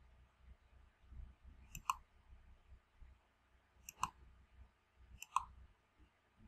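Faint computer mouse button clicks, three of them a second or two apart, each a quick press-and-release double click.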